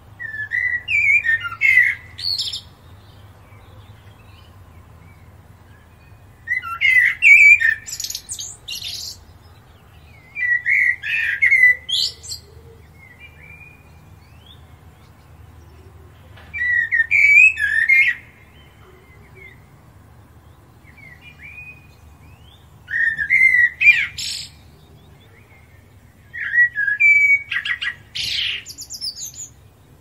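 European robin singing: six short, high-pitched warbled phrases of about two seconds each, with pauses of a few seconds between them.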